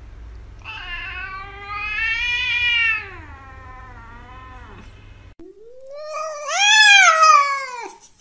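Domestic cats meowing: one long, drawn-out meow that rises and then falls over about four seconds, then, after a brief break, a second cat's louder meow that climbs and drops away near the end.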